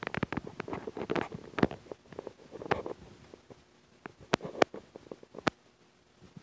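Pet mouse rustling and shuffling its shredded paper bedding: a run of crackly rustles over the first three seconds, then three sharp clicks a little after four seconds and again about five and a half seconds in.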